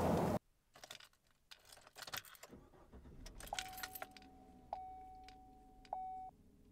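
The tail of a loud boom cuts off abruptly at the start. Then a key ring jingles against a Chevrolet key in a truck's ignition as the key is handled. From about halfway in, the dashboard chime sounds a steady ding that is restruck several times and stops shortly before the end.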